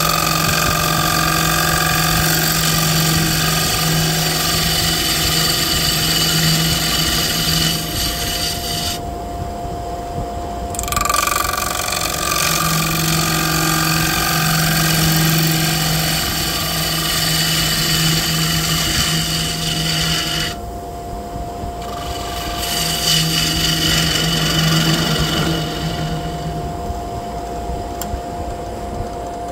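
Wood lathe spinning a cherry burl plate blank while a turning gouge cuts into it, a loud rough cutting noise over the lathe's steady hum. The cut breaks off twice for a second or two, leaving only the hum, and eases off near the end.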